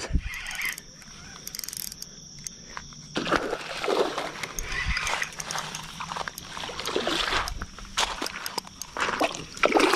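Hooked bass splashing and thrashing at the water's surface as it is reeled in close to the bank, in irregular bursts from about three seconds in.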